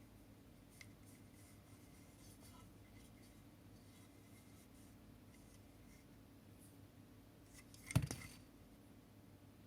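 Quiet handling noises, faint scraping and light ticks over a low room hum, then one sharp click with a brief rattle about eight seconds in.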